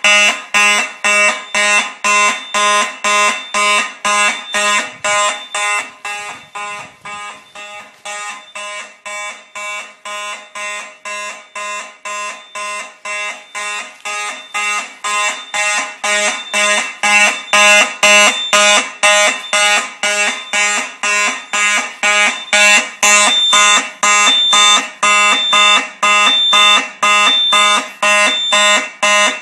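Several Simplex fire alarm horns, driven by a Simplex 4008 panel, sounding together in march time: loud buzzing blasts about twice a second, fainter for a stretch in the middle. Near the end a short high beep joins each blast.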